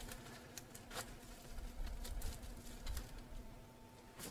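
Faint rustling and a few light clicks as golden pothos vines and leaves are handled against a moss pole, over a faint steady hum.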